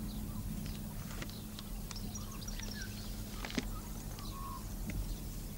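Small birds chirping faintly, many short calls and little pitch glides, over a low steady hum, with a single sharp click about three and a half seconds in.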